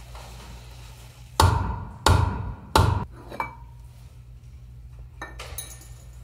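Three hard hammer blows on metal, each ringing briefly, then a few light clicks: typical of knocking loose the knock-off spinner of a wire wheel so the wheel can come off its splined hub.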